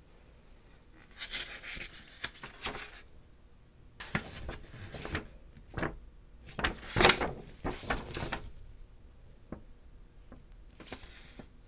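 A folded paper quick start guide being opened out and handled: paper rustling and crinkling in irregular bursts, with a longer, busier stretch in the middle that is loudest about seven seconds in, and a shorter rustle near the end.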